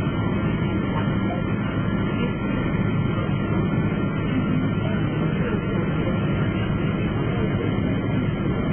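Steady airliner cabin noise after landing: an even rumble and hiss that holds at one level throughout.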